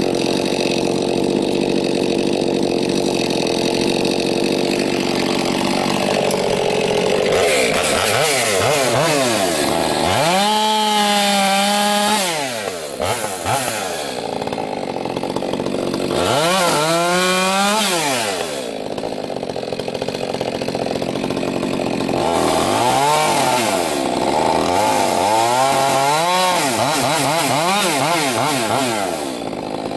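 Stihl MS 462 two-stroke chainsaw with an aftermarket bark box muffler cutting logs. It runs steady under load through a cut at first, then revs up and drops back several times between cuts.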